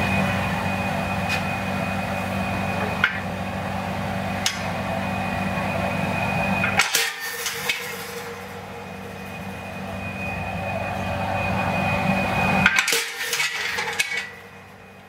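A steady machine hum, pausing briefly about halfway, with a few sharp metal knocks as a handled punch is struck on a thin steel plate resting on an anvil, dimpling its surface.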